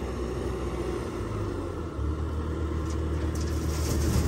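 Compact track loader's diesel engine running under load as it lifts a full bucket of soil, getting louder about two seconds in. Near the end, soil starts pouring from the tipping bucket into a dump trailer with a faint hiss.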